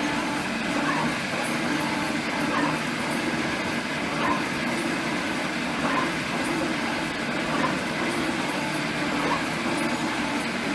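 G&E metal shaper running, its ram stroking back and forth about once every second and a half to two seconds. A shear tool takes a cut through an aluminum plate on each stroke, over a steady hum from the motor and gearing.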